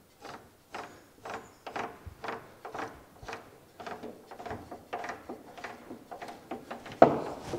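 Holden screw-up car jack being wound up by hand under a chassis rail, pushing a replacement rail section into place: a rhythmic clicking grind of about three strokes a second, with one sharp knock near the end.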